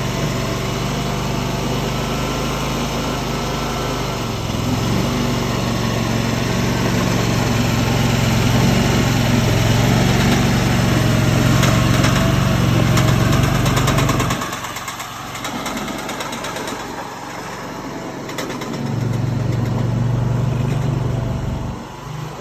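Tracked mini skid steer's engine running steadily. Its note drops away suddenly about two-thirds of the way through, comes back up a few seconds later, and falls off again near the end.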